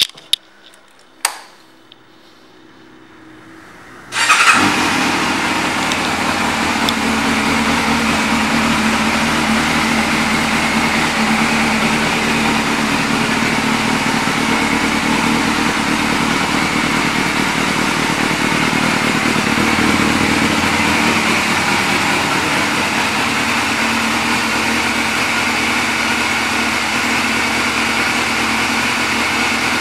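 2006 Yamaha YZF600R's inline-four engine started after a couple of clicks, catching about four seconds in and then idling steadily through its aftermarket exhaust.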